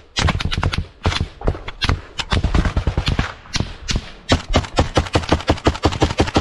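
Close, rapid gunfire: strings of sharp rifle shots with a short lull about a second in. From about four seconds in it becomes a fast, steady run of several shots a second.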